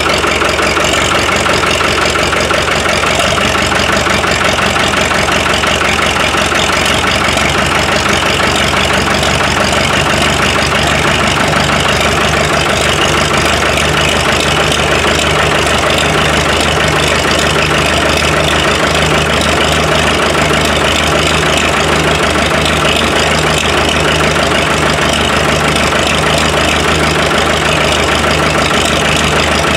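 A 1955 International TD6 crawler's four-cylinder engine idling steadily while it warms up, with a low, even pulsing beat that grows stronger about a quarter of the way in.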